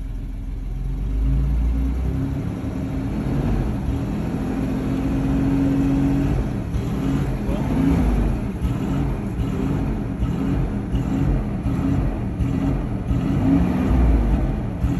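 Toyota 4Runner V6 engine running under way, its revs climbing and then surging up and dropping back again and again. This is the sporadic RPM jump and fall above about 1500 rpm that the owner later traced to the mass airflow sensor.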